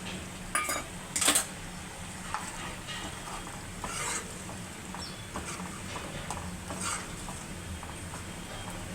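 A spatula scraping and stirring minced chicken keema in a frying pan, over a low sizzle. The strokes come every second or two, and the loudest scrape falls about a second in.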